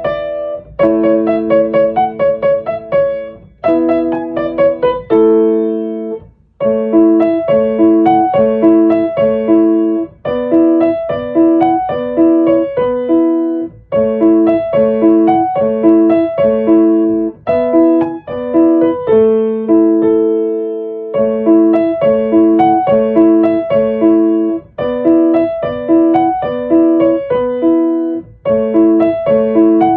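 Background piano music: a gentle piece of repeated melodic phrases, with short pauses between phrases.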